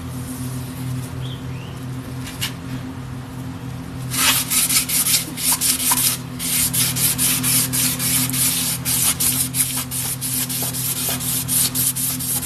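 A strip of 1000-grit abrasive pulled shoeshine-fashion back and forth around a Ford 460 crankshaft journal, a rapid rasping hiss of rubbing strokes that starts about four seconds in. The grit is so fine it barely bites, so this is polishing rather than cutting metal. A steady low hum runs underneath.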